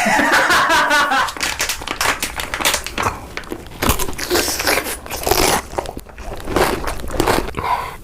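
Close-miked crunching and crackling of someone biting and chewing crisp food: a dense run of sharp cracks and crackles.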